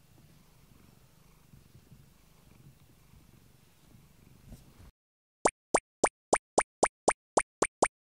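A domestic cat purring faintly, a low steady rumble. It cuts off about five seconds in, and then come about ten short, sharp cartoon footstep sound effects, roughly four a second and far louder than the purring.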